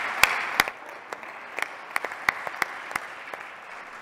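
Audience applauding, with evenly spaced claps about three a second running through it; the applause drops sharply after the first second and then fades out.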